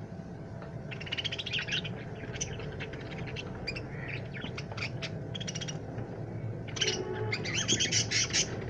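Budgerigars chirping in rapid, high-pitched chattering bursts, one about a second in and a louder one near the end.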